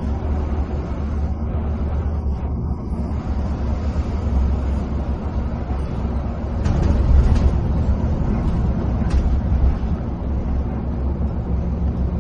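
Coach engine running steadily with the drone of tyres on the road, heard from inside the cabin while the bus is driving. A few light clicks come past the middle.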